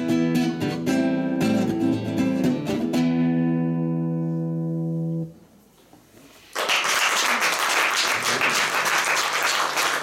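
Nylon-string classical guitar strummed in quick chords, ending the song on a final chord that rings for about two seconds and is then damped. After a short silence, audience applause starts and carries on.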